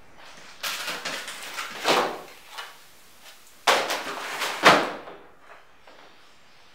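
Cardboard and plastic packaging rustling and scraping as a portable gas stove's black plastic carrying case is pulled out of its box and set down, with a knock about two seconds in and a louder knock near the five-second mark.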